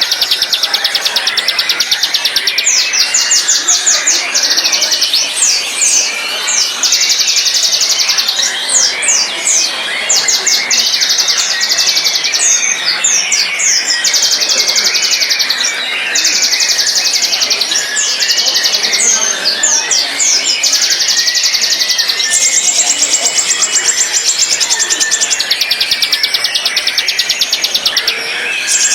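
White-rumped shama (murai batu) singing: long, fast rattling trills lasting several seconds each, broken by quick sliding whistled notes.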